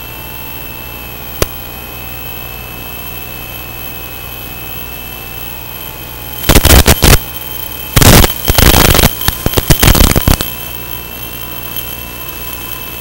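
Steady hiss of an analog FPV video link's audio channel with faint steady whistle tones and a single click about a second and a half in. From about six and a half to ten and a half seconds in, loud ragged crackling bursts of static break in as the receiver's signal breaks up.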